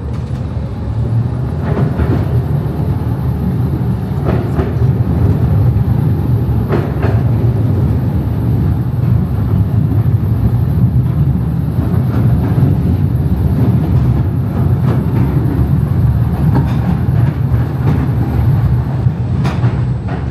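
Mail Rail ride train running steadily on its narrow-gauge underground track: a continuous low rumble of wheels on rail, with a few sharp clicks scattered through it.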